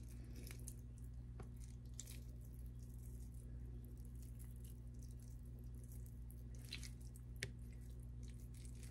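Faint wet squishing and small ticks of cooked chicken meat being torn apart by hand, over a steady low hum. The loudest tick comes near the end.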